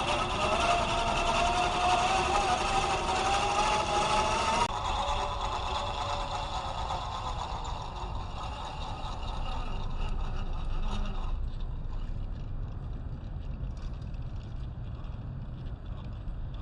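A scale RC crawler's Fusion SE 1800kv brushless motor and drivetrain whining as it drives, rising steadily in pitch as it speeds up. The whine cuts off abruptly about five seconds in. A fainter whine goes on to around eleven seconds, leaving low rumbling noise.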